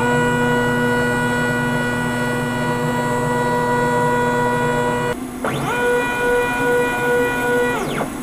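DIY CNC router's stepper motors jogging the gantry and router head: a steady, loud whine that cuts off about five seconds in, then a second move whose whine rises in pitch, holds, and falls away near the end.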